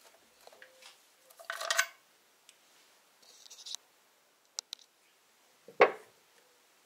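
Ratchet wrench clicking in short runs as the oil drain plug is tightened into the sump, with a few single ticks. Near the end comes one loud, dull knock.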